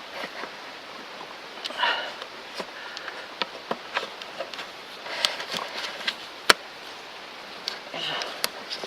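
Scattered clicks and rustles of hands working in a car's engine bay, wrapping vinyl tape round a loose hose, with one sharp click about six and a half seconds in.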